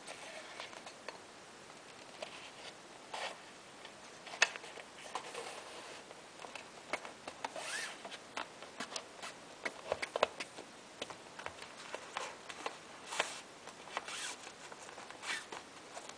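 A cloth print being pressed edge-first into the groove of an aluminium light-box frame by hand: irregular rustling of the fabric with many small, sharp clicks and scrapes.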